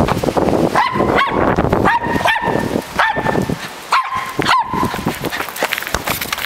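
Small terrier barking in short, high barks, about seven of them, several in quick pairs, excited play barking.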